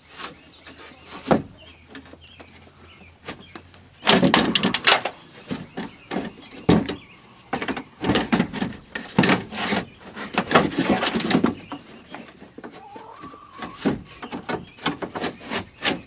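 Steel window regulator of a 1991 Ford F-150 being wrestled out of the door shell: irregular scraping, clanking and rattling of metal on metal. It comes loudest about four seconds in and again in a long run from about eight to eleven seconds, with a brief rising squeak near thirteen seconds.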